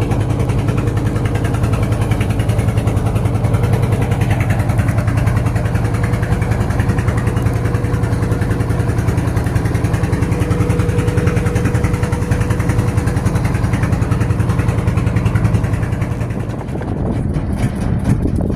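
Boat engine running steadily under way, a fast-pulsing low rumble that eases briefly near the end.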